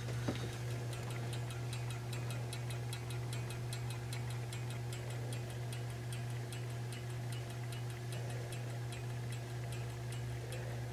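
Battery-powered non-quartz clock movement in a 1970s Seth Thomas wall clock running, with fast, even ticking over a steady low hum.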